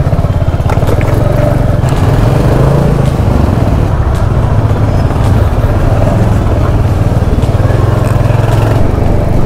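Royal Enfield Hunter 350 single-cylinder engine running steadily at highway speed, heard from the moving bike, with road and wind noise.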